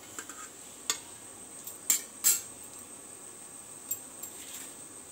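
Perforated metal skimmer clinking against a metal pot of water as boiled momos are scooped out: a few sharp clinks, the loudest two about two seconds in, over a faint steady hiss.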